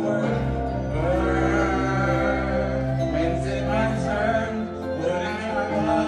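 Karaoke: men singing into microphones over a backing track with sustained bass notes.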